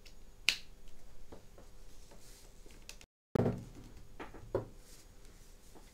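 Light clicks and knocks of cables being handled and plugged into the Azure Kinect DK, the heaviest a thunk just after a brief dropout about three seconds in, over a faint steady hum.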